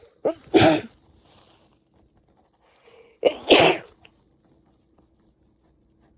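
A woman with a cold sneezing twice, each sneeze a short catch of breath followed by a sharp burst; the two come about three seconds apart.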